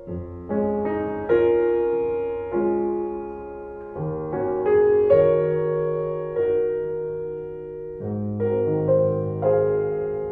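Slow solo piano music: notes and chords struck about once a second and left to ring out and fade.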